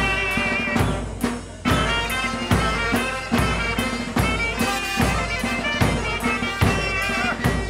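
Greek village brass band of clarinet, trumpets and trombone playing a folk dance tune over a steady drum beat, with a short dip about a second in.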